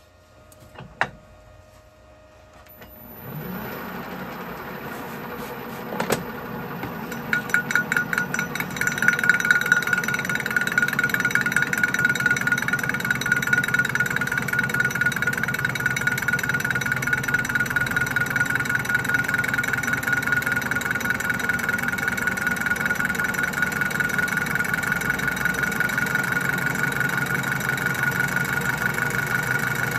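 Colchester Student lathe starting up about three seconds in, then its tool facing a square steel plate held in a four-jaw chuck: an interrupted cut where the tool strikes the plate's corners, first as uneven knocks, then settling into a fast rhythmic clatter under a steady high whine.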